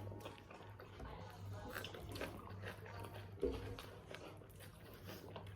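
Faint eating sounds: chewing and small clicks and rustles of people eating biryani, with a low thump about three and a half seconds in, over a steady low hum.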